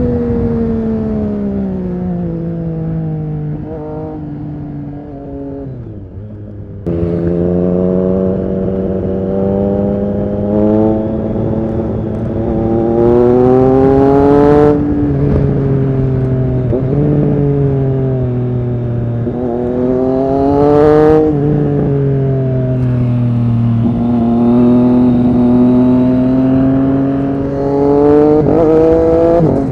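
Triumph Street Triple RS 765's inline three-cylinder engine through an SC-Project S1 exhaust, heard while riding. The engine note falls away for the first six seconds, picks up sharply about seven seconds in, then rises and falls through several rounds of acceleration and easing off.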